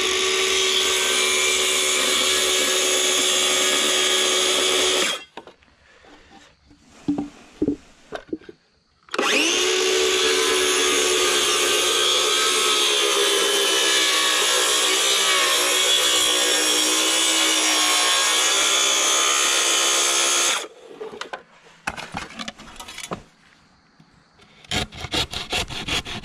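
Cordless circular saw cutting a wooden board in two runs: it spins up and cuts for about five seconds, stops, then spins up again about nine seconds in for a longer cut, its pitch dropping as the blade works through the wood before it winds down. Near the end a handsaw starts cutting with quick rasping strokes.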